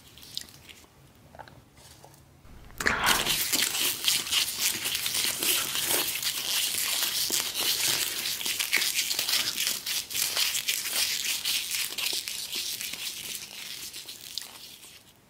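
Paper napkin crinkling and rustling as hands handle and fold it around a bunch of fresh red chili peppers. It starts abruptly about three seconds in after a few faint taps and tails off near the end.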